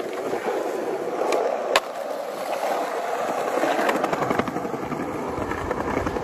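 Skateboard wheels rolling over stone paving tiles, a steady rolling noise. A sharp clack comes a little under two seconds in, with a few lighter clicks.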